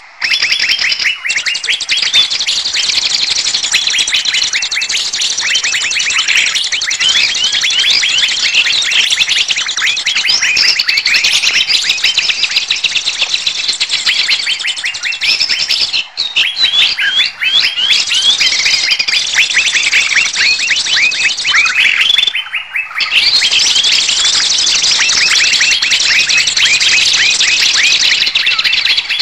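Bird-trapping lure recording of many small songbirds calling at once in a noisy commotion: dense, rapid, high chirps and whistled notes packed together, with a short break about 22 seconds in.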